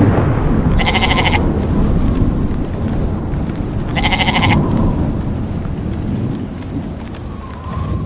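Two short bleats, about three seconds apart, over a steady rain-and-storm sound bed, with a thunder rumble dying away at the start.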